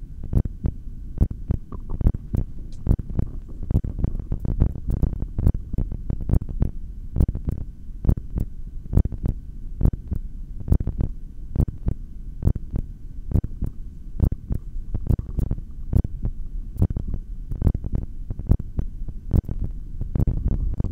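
Human heartbeat picked up through a stethoscope on the chest during a held breath on full lungs: a steady run of low thumps, with a faint hum behind.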